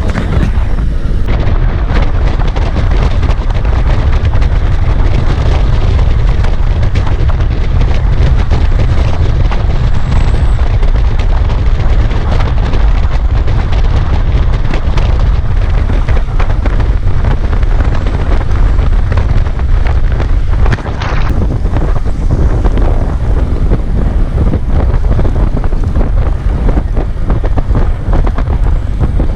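Wind buffeting the camera microphone of a mountain bike on the move: a loud, continuous low rumble with many small knocks and rattles over it.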